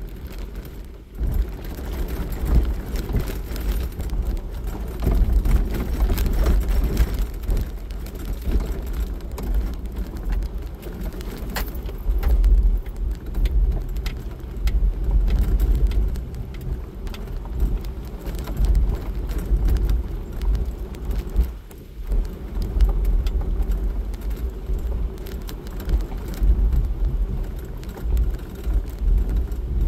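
Jeep Wrangler driving on a gravel road: engine running and tyres crunching over gravel, with scattered small clicks and a heavy low rumble that rises and falls.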